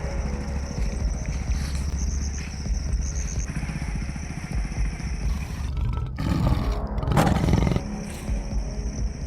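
Background music with a tiger roaring over it, the roar loudest about seven seconds in.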